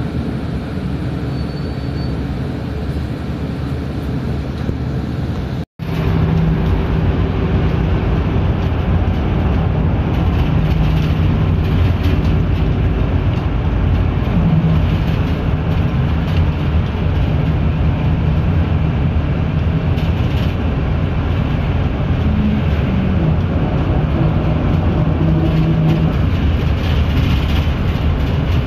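City bus engine and road noise heard from inside the cabin while the bus drives, a steady low drone. The sound cuts out for a moment about six seconds in, then returns louder.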